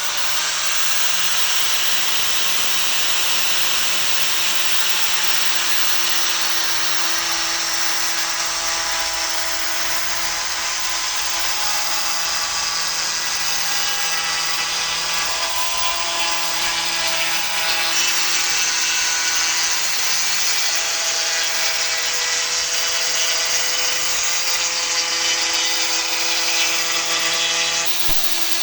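Angle grinder converted into a homemade wood profile router running at full speed: a steady high whine under a harsh cutting noise. The cutting noise gets brighter about two-thirds of the way through and eases just before the end.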